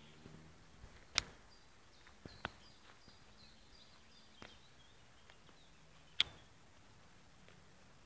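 Quiet forest ambience with a small bird giving a quick series of short high call notes between about one and four seconds in. Several sharp clicks are the loudest sounds, the strongest about a second in and about six seconds in.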